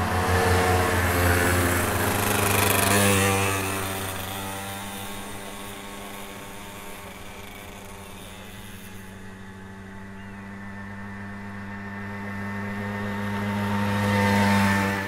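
Vintage two-stroke mopeds riding past one after another on a gravel road. The engine buzz is loud in the first few seconds as riders pass close, fades to a steadier distant buzz, then swells again as another moped comes close near the end.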